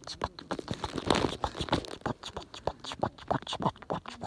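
Wood fire crackling: a dense, irregular run of sharp pops and snaps, several a second, from burning wood in a bonfire.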